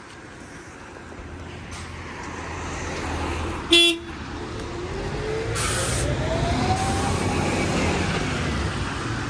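A single short horn toot about four seconds in, then a bus pulling away, its drive whine rising steadily in pitch over about three seconds as it speeds up, with a brief hiss in between and the engine noise growing louder.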